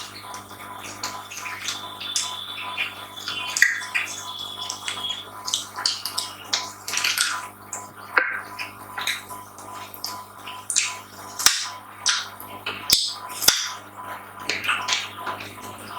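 Close-up eating sounds: wet chewing, lip smacks and mouth clicks, irregular and frequent, over a steady low hum.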